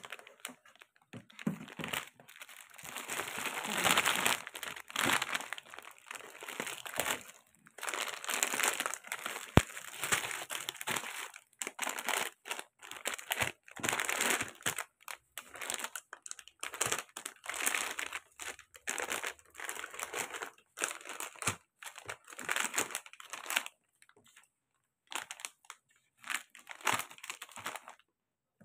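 Plastic pastry wrappers crinkling as packs of piaya are handled and shifted by hand, in irregular rustling bursts that thin out near the end.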